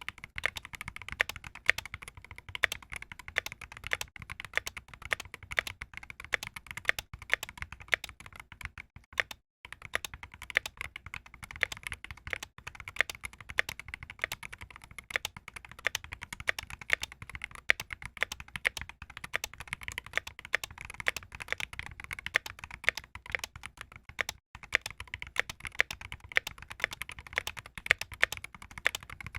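Continuous typing on an RK61 Pro 60% mechanical keyboard fitted with Everglide Aqua King linear switches and double-shot PBT keycaps: a dense, rapid stream of keystroke clacks, with brief pauses about nine and a half and twenty-four seconds in.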